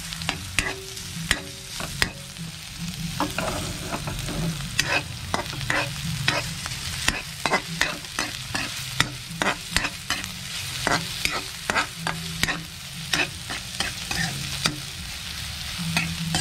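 Metal ladle scraping and clinking against an aluminium wok in irregular sharp strokes while stirring garlic, onion and turmeric frying in oil, with a steady sizzle underneath.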